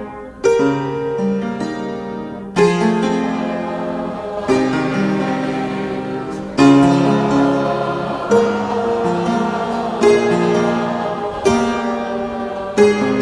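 Slow instrumental music: chords struck about every two seconds, each left to ring and fade.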